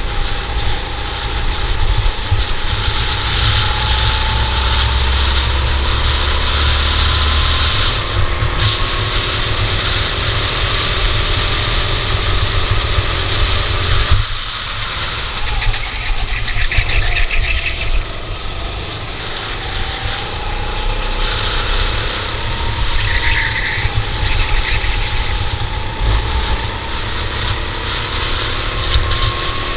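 Cadet racing kart engine running at race speed, its pitch climbing slowly and dropping again several times as it accelerates and slows around the circuit, over a steady rushing noise.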